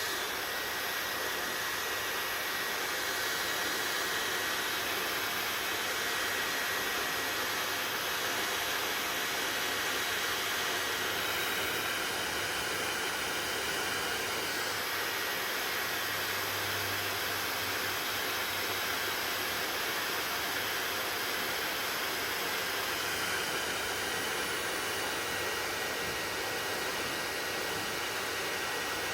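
Hair dryer running steadily: a constant rush of blown air with a faint steady hum underneath.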